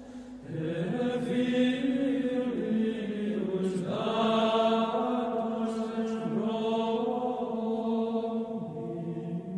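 Sung vocal chant as background music: slow, long-held sung notes that shift pitch every second or two, with words sung.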